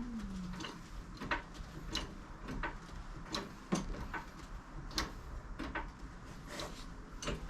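A series of sharp metallic clicks and light knocks, about one or two a second and unevenly spaced, as the car is raised on a jack.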